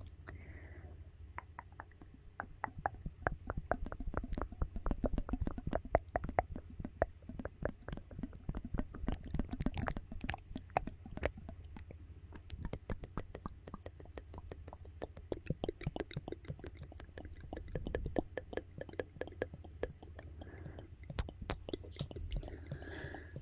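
Wet mouth sounds right up against a microphone: quick, irregular runs of soft clicks and smacks from the lips and tongue.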